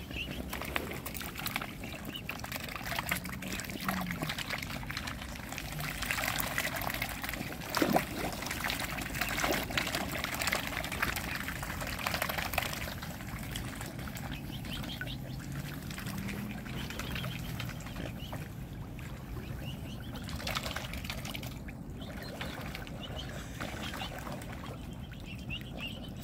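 Mute swan cygnets dabbling and feeding with their bills at the water's surface close by: continuous small splashes and trickling water with many little clicks, busiest in the first half, with one sharper splash about eight seconds in.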